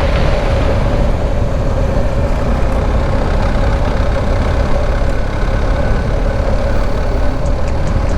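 BMW R1250 GS Adventure's boxer-twin engine running at a steady speed under way, mixed with wind and tyre noise, on a dirt road.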